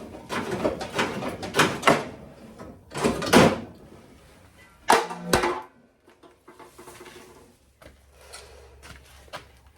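Irregular knocks and clatter of metal parts being handled, several in the first two seconds and two louder bursts about three and five seconds in, then quieter with a faint low hum.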